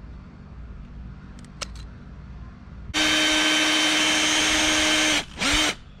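Power drill boring a screw hole into a wooden door-frame board: a steady, even motor whine at constant speed for about two seconds, starting about three seconds in. It stops and is followed by a brief second burst whose pitch dips and comes back up.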